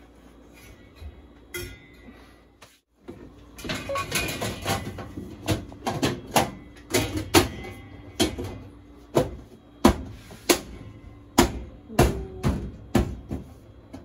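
Sheet-metal knocks and clanks as the range hood fan's outer frame is fitted into the metal hood housing. Quiet handling at first, then from about three and a half seconds in a run of sharp, irregular knocks.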